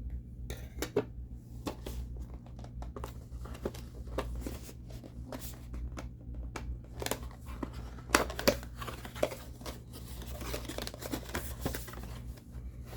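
Cardboard action-figure packaging being handled and opened by hand: irregular scraping, tearing and crinkling, with a couple of sharper snaps about eight seconds in.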